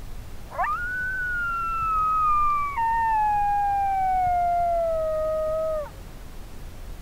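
A recorded coyote howl played through a Lucky Duck Roughneck electronic predator caller: one long howl of about five seconds that rises quickly, then slides slowly down in pitch with a sudden drop about halfway through, before falling away at the end. It is a call meant to draw coyotes in.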